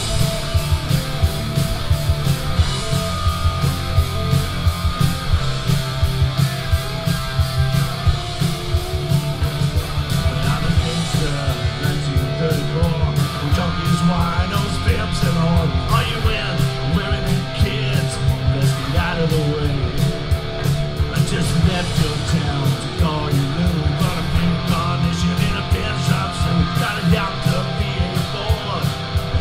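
Live rock band playing loud, with distorted electric guitars, bass guitar and a steady, driving drum kit beat.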